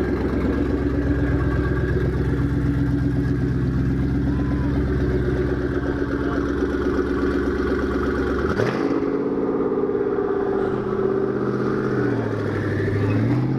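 A car engine idling loudly and steadily with a deep rumble. About eight and a half seconds in the sound changes abruptly to a lighter engine note, and near the end the engine's pitch dips and then rises again.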